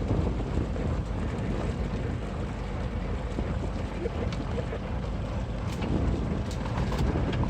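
Steady low rumble of a fishing boat at sea, with wind buffeting the microphone and a few faint sharp ticks in the second half.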